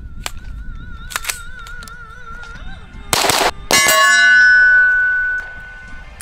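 A 7.5-inch-barrel 300 Blackout AR-15 pistol fires a shot. Moments later comes a loud clang as the round hits a distant steel silhouette target, and the plate rings for about a second and a half.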